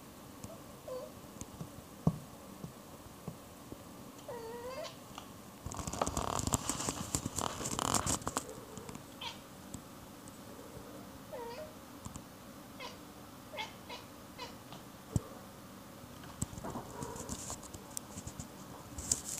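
Grey tabby cat making short chirps and chirping meows, the sounds a cat makes when it is eyeing a bird as prey. A sharp click comes about two seconds in, and a loud spell of rustling from about six to eight seconds in.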